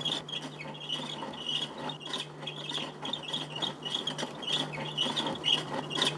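Wood being turned on a foot-treadled pole lathe: a repeated rasping scrape of the cutting tool on the spinning wood, over a steady low hum.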